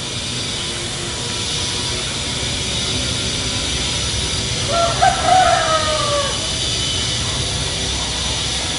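Steady rush of a fast-flowing river. About five seconds in, a rooster crows once, a drawn-out call that falls away at the end.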